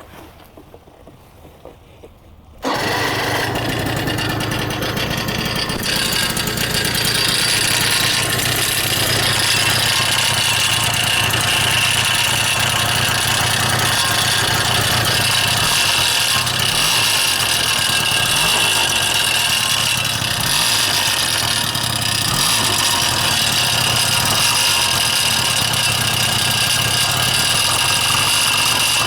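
Suzuki Address V100 scooter's two-stroke single-cylinder engine starting about two and a half seconds in, then running steadily with an abnormal noise from its muffler, a muffler bought online that turned out faulty.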